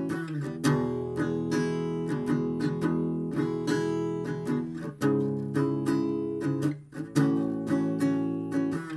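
Background music of strummed acoustic guitar chords, changing chord about halfway through.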